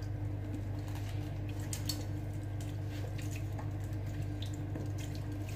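Steady low hum, with scattered small clicks and taps as a pepper shaker and a seasoning bottle are handled over a metal pot.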